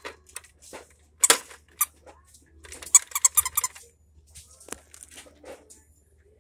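Plastic clicks and snaps of a Fisher-Price pop-up toy as its buttons and slider are worked and the character heads pop and are pushed down. There are a few single sharp clicks, and a quick even run of clicks about three seconds in.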